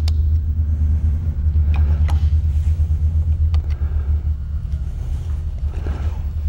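A steady, fluttering low rumble with a few sharp clicks of small steel parts being handled, as the bridge pin is fitted into a sidelock shotgun's action.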